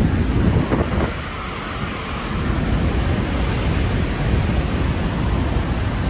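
Wind buffeting the microphone: a loud, fluttering rush that eases slightly for about a second, a second in.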